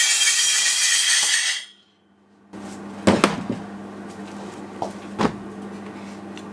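Angle grinder grinding down steel, a loud hissy rush that stops abruptly a little under two seconds in. After a short gap, a steady low hum with a few sharp knocks and clatters of metal tools being handled.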